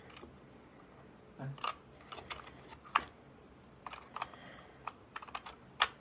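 Hands handling a new Canon G7X compact camera: irregular small clicks and taps of plastic and metal parts. The clicks come in loose clusters, the sharpest about halfway through and just before the end.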